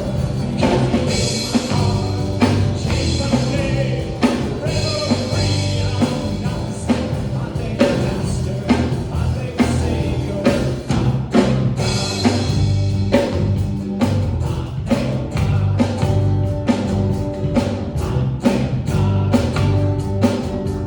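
Live worship band playing a rock-style passage, with a drum kit keeping a steady beat under held bass and instrument chords.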